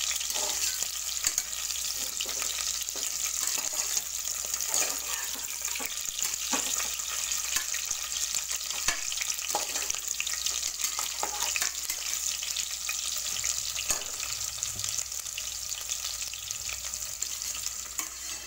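Cauliflower florets sizzling as they fry in oil in an aluminium pressure cooker, with a slotted steel spoon stirring and scraping through them now and then in short clicks. The florets are being browned lightly.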